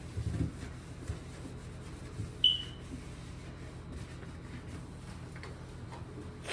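A smoke alarm gives one short high chirp about two and a half seconds in, an alarm that keeps chirping even with a new battery in it. Soft bumps and handling knocks sound around it.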